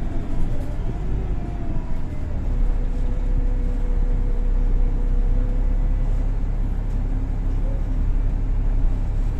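Golden Dragon XML6125 city bus with Voith automatic gearbox under way, heard inside the cabin: steady engine and road rumble with a drivetrain whine that drops in pitch over the first two seconds, then holds steady.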